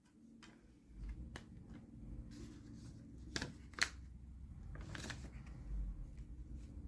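Hands handling a CD and its packaging: a series of short clicks and rustles, the sharpest a few seconds in, over a low handling rumble on the microphone.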